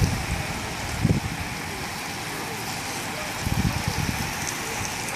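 Steady wet hiss of many bicycle tyres on rain-soaked tarmac as a stream of cyclists rides past, with low rumbles about a second in and again past the middle.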